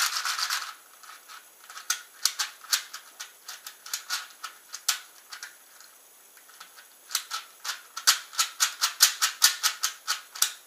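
ShengShou 4x4 V3 speed cube being turned by hand: quick plastic clicks and clacks of its layers snapping round, with a slightly scratchy sound. A cluster of turns at the start, scattered single turns, a short pause past the middle, then a fast run of turns near the end.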